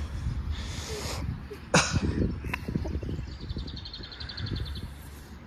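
Wind buffeting a phone microphone, a low rumble throughout, with one short sharp noise just before two seconds in. A bird sings a rapid trill of even high notes from a little after three seconds, lasting about a second and a half.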